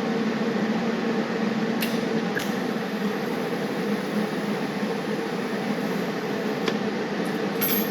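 Steady mechanical hum with a constant hiss, two low tones held level throughout, and a few faint clicks.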